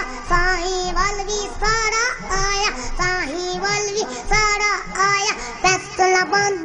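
Young boy singing a devotional song solo into a microphone, in long held notes that bend and waver in pitch.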